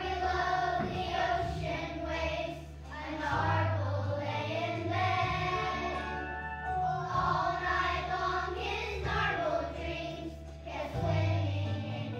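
Young children's choir singing a song together over an instrumental accompaniment with a steady low bass line.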